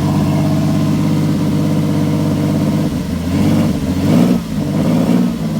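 Chevrolet Cavalier engine idling steadily, then revved unevenly from about three seconds in, its oil just topped up after running nearly empty. Its dry-valve tick is gone.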